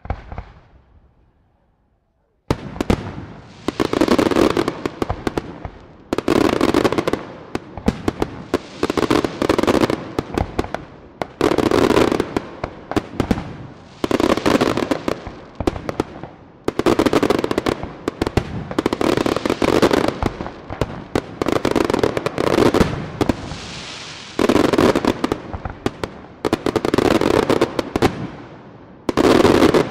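Aerial fireworks display: one bang at the start, then after about two seconds a run of about a dozen volleys of rapid, crackling shell bursts, each a second or two long, with short gaps between.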